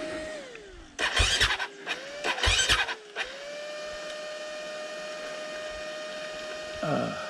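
Dirt bike engine running, with two short loud bursts of throttle about one and two and a half seconds in, then settling back to a steady idle. A brief falling sound comes near the end.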